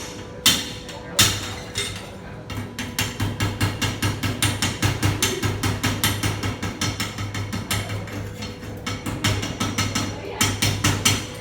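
Hammer striking metal in a rapid, regular run of sharp knocks, about four to five a second, after a couple of heavier single blows near the start.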